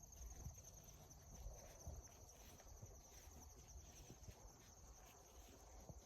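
Faint, steady high-pitched trilling of insects, with a few soft low thumps underneath.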